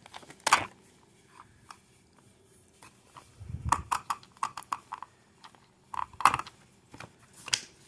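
Hard plastic clicks and knocks from a toy RC monster truck's battery-compartment flap as it is pressed down and flipped open, with hands handling the plastic body. There is a duller knock about three and a half seconds in, and several sharper clicks.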